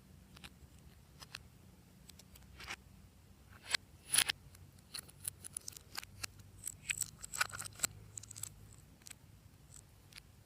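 Glossy slime being worked by hand, giving an irregular run of sharp wet clicks and pops, busiest from about four to eight and a half seconds in.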